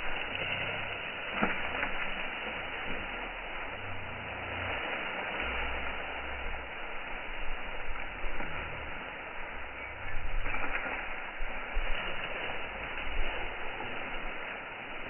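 Wind buffeting the microphone: an uneven low rumble over a steady hiss, with a few faint cracks scattered through.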